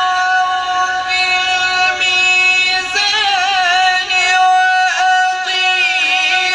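A male qari reciting the Quran in the melodic tilawat style, drawing out one long, high note with ornamental pitch turns in the middle and near the end.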